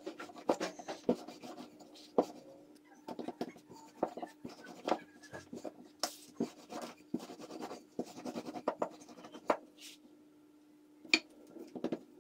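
Wooden rolling pin rolling out thin dough on a floured silicone mat: irregular soft knocks and clicks as the pin is rolled, lifted and set down, with light scraping of hands and dough on the mat. A faint steady hum runs underneath.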